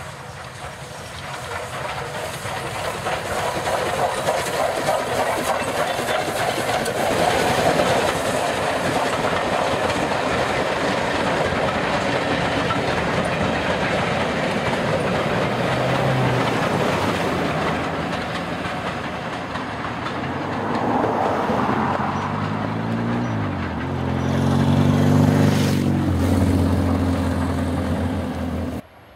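Steam-hauled passenger train passing, its coach wheels clattering over the rail joints. The sound grows louder over the first few seconds, holds steady, then cuts off abruptly near the end.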